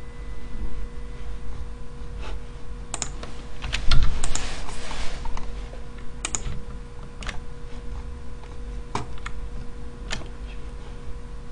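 Computer keyboard keys clicking in scattered strokes, with a quick run of keystrokes about three to five seconds in, over a steady low hum.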